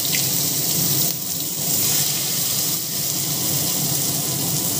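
Chopped onions sizzling in hot mustard oil in a kadai, a steady frying hiss.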